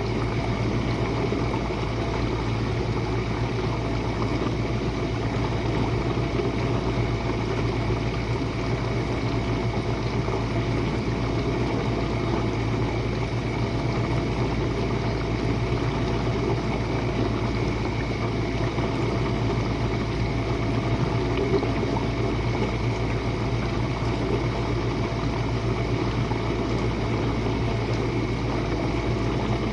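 Jenn-Air dishwasher running its Quick Wash cycle: a steady motor hum with an even wash of water noise over it, unchanging throughout.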